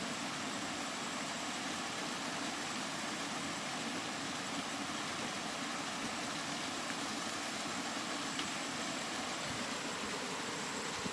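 Steady, unbroken rain: an even hiss that holds the same level throughout.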